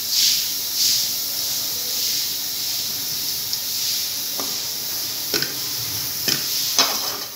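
Shredded cabbage and grated carrot sizzling in oil in a frying pan as they are stir-fried with a metal spatula, the hiss swelling with the stirring in the first second. Near the end the spatula clicks sharply against the pan four times.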